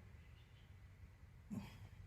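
Near silence: faint room hum, with one brief soft sound about one and a half seconds in.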